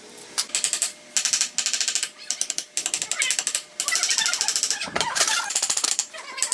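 A power tool run in short bursts, each a fast, even rattle, stopping and starting several times.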